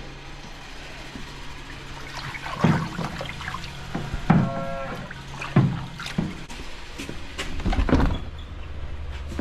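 A string of clanks and knocks from equipment being handled in a milking barn, over a steady machine hum that cuts off about six seconds in. There is also a brief high squeal near the middle.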